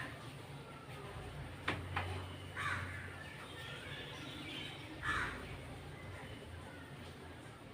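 A crow cawing, once about two and a half seconds in and again about five seconds in. Two short clicks come just before the first caw, over a low steady hum.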